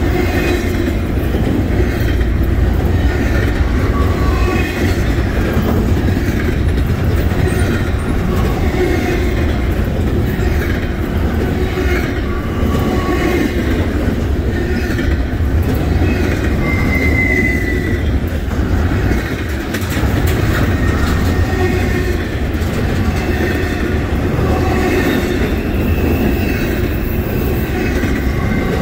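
Doublestack intermodal well cars rolling past close by: a steady rumble and clatter of steel wheels on rail, with short high-pitched wheel squeals that come and go, the clearest a little past halfway.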